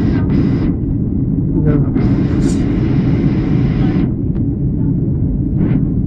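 Steady low rumble of jet airliner cabin noise in flight, engines and airflow heard at a window seat, with a brief higher hiss over it about two seconds in.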